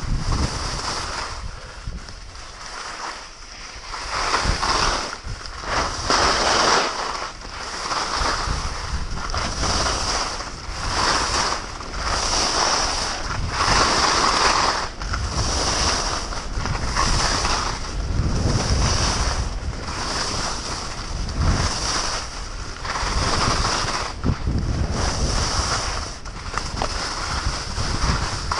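Skis scraping and hissing over packed snow in a rhythm of turns, the noise swelling and fading about every second and a half, with wind rushing over the microphone.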